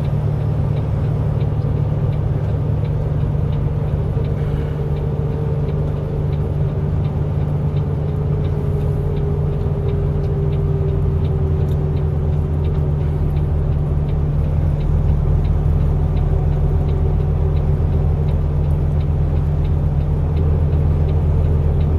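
Steady low engine and road drone heard from inside a moving vehicle, with a faint whine that slowly drops in pitch partway through.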